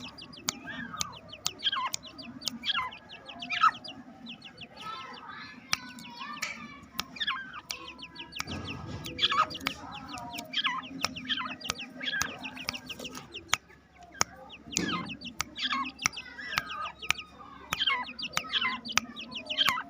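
A group of young Irani teetar chicks calling: a busy, overlapping stream of short, high calls that fall in pitch, with many sharp ticks among them.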